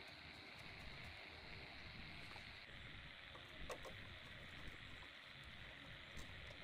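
Near silence: a steady faint hiss with a few faint light clicks, the clearest a little under four seconds in and another near the end.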